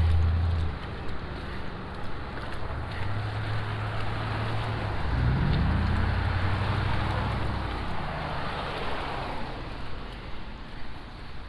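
A car passing on the street: a low engine hum that rises in pitch about five seconds in, with tyre hiss swelling through the middle and fading near the end.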